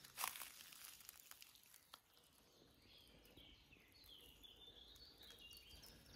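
Near silence with faint distant bird song: a series of short high chirps through the second half, after a few faint rustles near the start.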